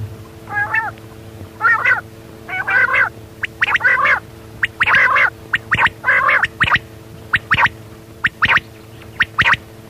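Quail calling repeatedly: short, raspy calls about once a second, turning into quicker, sharper notes about halfway through.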